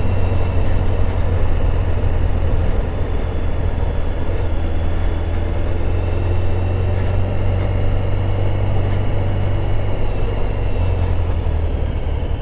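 Steady wind rush and low rumble on a motorcycle-mounted microphone while riding, with the bike's engine running underneath.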